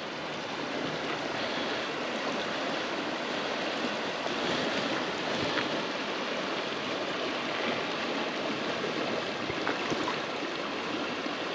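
Shallow, rocky creek running steadily: an even rush of flowing water.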